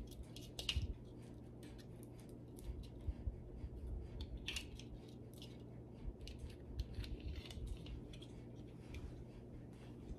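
Small, faint, irregular clicks and scrapes of a Christmas ball ornament's metal cap and hanger being worked with the fingers.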